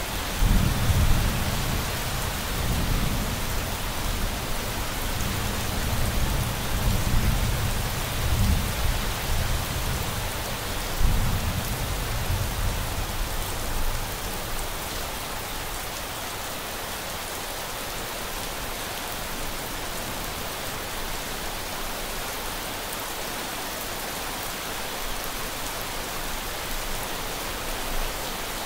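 Steady rain with a long rumble of thunder that begins right at the start, rolls on through several swells for about fourteen seconds and dies away, leaving only the even hiss of the rain.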